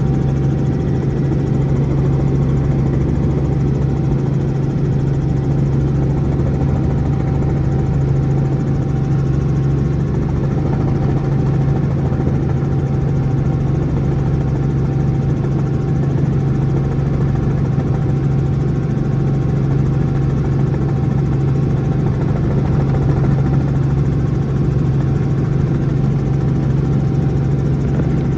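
Robinson R44 helicopter running steadily: a loud, even drone from its piston engine and rotors, with a thin steady tone above it.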